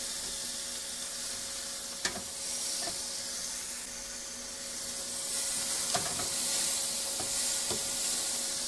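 Chicken breasts sizzling on the preheated grill grate of a Kalorik Maxx air fryer oven in grill mode: a steady frying hiss, a few sharp pops of fat about two seconds in and near the end, and a steady hum from the running oven underneath.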